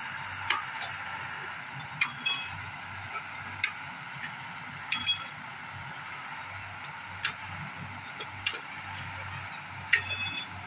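Scattered sharp metallic clinks, about seven, irregularly spaced, each ringing briefly: steel striking steel during railway track relaying. Under them runs a steady high hiss.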